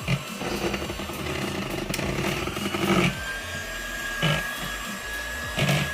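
Electric mixer running steadily, beating butter, eggs and condensed milk into a smooth waffle batter, with a thin whine and a few short knocks along the way.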